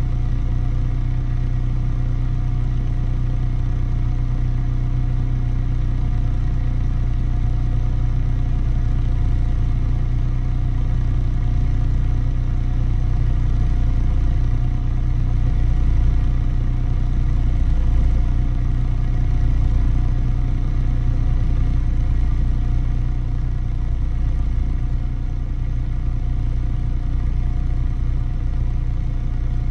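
Engine idling, heard at the exhaust: a steady low running note that swells slightly a little past the middle and settles again.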